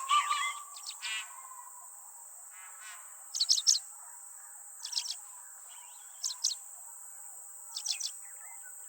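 Forest birdsong over a steady high-pitched insect drone. A bird gives a few rapid calls at the start, then short bursts of two or three high notes repeat about every one and a half seconds.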